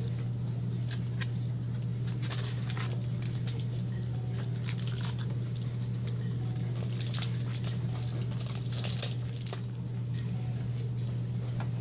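Close-up chewing and mouth sounds of someone eating fries, coming in crackly clusters, over a steady low hum.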